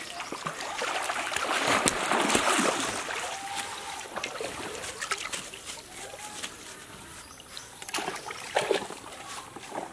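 Pond water splashing and sloshing around a person wading waist-deep with a caught fish, loudest in the first few seconds and then dying down. A few sharp knocks come near the end.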